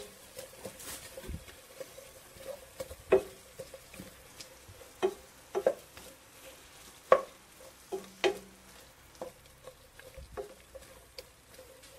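A spatula stirring sliced onions in a pan, with irregular sharp knocks of the spatula against the pan over a faint sizzle of the onions cooking.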